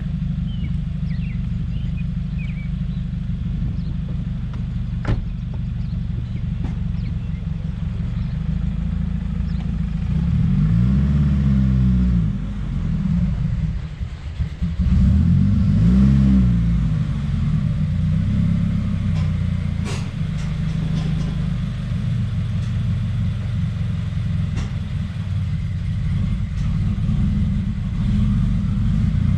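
2017 Subaru WRX's turbocharged 2.0-litre flat-four engine running, with engine speed rising and falling twice about ten and fifteen seconds in and a brief dip near fourteen seconds. It is running poorly with the air-fuel ratio way off, which the owner suspects is a boost or vacuum leak after a charge pipe and top-mount intercooler install.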